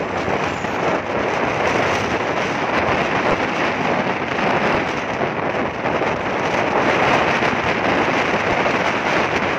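Steady wind rush on the microphone of a moving motorcycle, mixed with the riding noise of the bike on the road.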